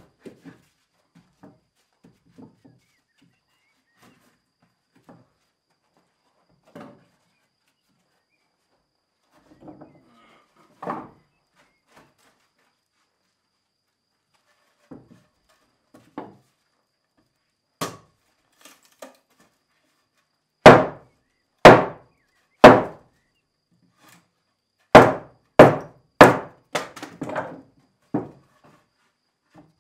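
Hammer blows on wooden floorboards: scattered light knocks and bumps, then three hard strikes about a second apart, and a few seconds later a quicker run of about five more.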